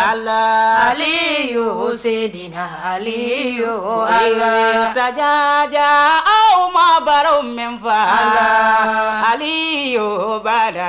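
A single voice chanting unaccompanied in Islamic devotional style, holding long steady notes that break into ornamented, wavering melismatic runs.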